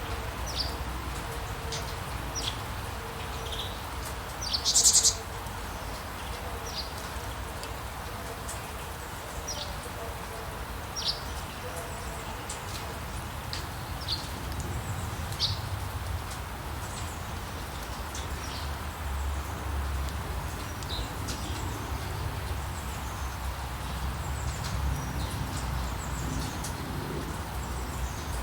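Songbirds chirping in short, scattered calls over a steady hiss of rain, with a low rumble underneath. A louder burst of rapid chirps comes about five seconds in.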